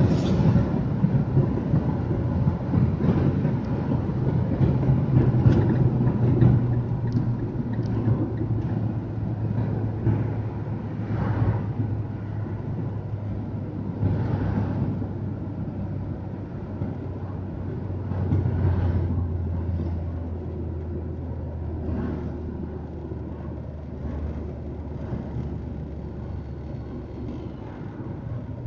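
Car cabin road noise at highway speed: steady tyre rumble with an engine drone. The drone drops in pitch about two-thirds of the way through and the noise eases off toward the end as the car slows.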